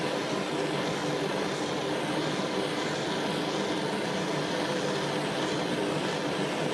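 Jeweler's gas torch flame burning steadily, a continuous rushing hiss as it heats a metal piece for soldering.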